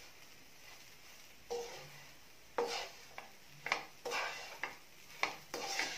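Wooden spatula stirring and scraping a dry stir-fry of cooked long bean leaves in a non-stick frying pan, in about half a dozen separate, irregular strokes.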